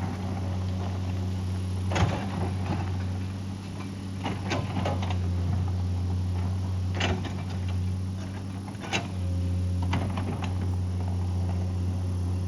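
Excavator's diesel engine running at a steady pitch, with several sharp knocks and clanks, the loudest about two seconds in.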